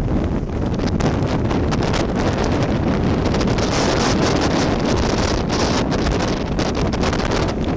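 Strong hurricane wind gusting and buffeting the microphone: a loud, continuous rushing noise with a deep rumble from the wind hitting the mic.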